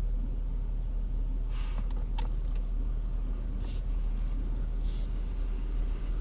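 Jeep engine running with a steady low rumble at crawling speed, heard from inside the cab, with a few brief crackles from ice breaking under the tyres.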